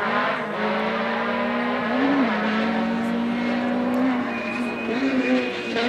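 Rally car engine running at high revs with its pitch held fairly steady, rising briefly a few times. A thin high whine joins it about four seconds in.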